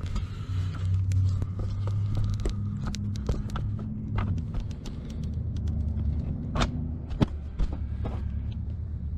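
Scattered clicks and knocks of a camera being handled and repositioned in an engine bay, over a steady low rumble.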